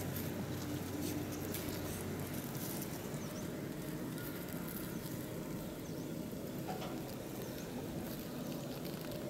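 Quiet outdoor ambience: a steady low hiss with a few faint high chirps and light scattered ticks.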